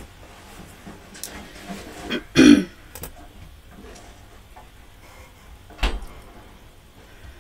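Handling noise close to the microphone: fabric rustling from a cardigan being tugged, a short loud burst about two and a half seconds in, and a sharp thump near six seconds.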